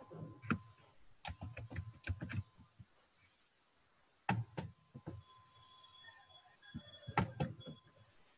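Computer keyboard keys clicking in short clusters of typing, with pauses between.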